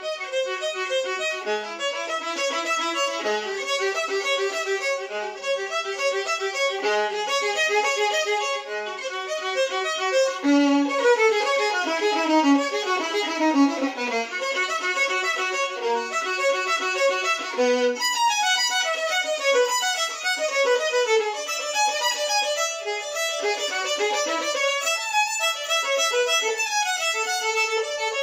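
Solo violin played with the bow: a melodic line that breaks into quick descending runs about ten seconds in, then rapid running notes through the second half.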